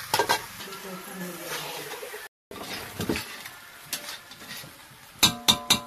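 Metal spatula knocking and scraping against an iron kadai as chicken curry is stirred, each strike ringing briefly, with a few strikes just after the start and a quick run of clangs near the end. Soft sizzling of the frying curry runs between the strikes.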